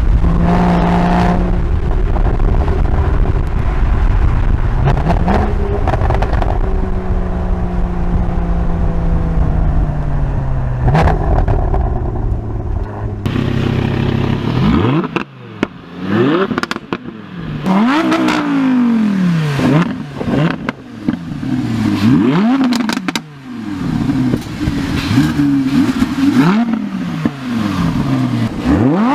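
Sports car exhaust: first a loud, deep engine note whose pitch drifts slowly down. Then, after a change of scene about 13 seconds in, a string of revs rises and falls every couple of seconds, with sharp pops and crackles on the overrun between them.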